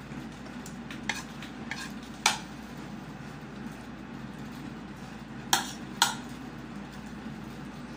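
Metal spoon clinking and scraping against a plate during eating: a few sharp clinks, the loudest about two seconds in and a pair half a second apart a little past halfway, over a steady low hum.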